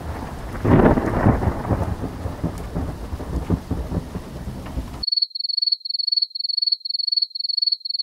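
Thunderstorm sound effect: rain hiss and rolling thunder, with a loud thunderclap about a second in, cutting off suddenly about five seconds in. Then crickets chirping, a high pulsed chirp repeating about two to three times a second.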